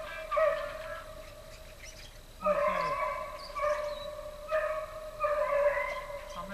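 Hunting dogs baying on a trail: about five long, drawn-out bawls at a steady pitch, from dogs running a beaver race.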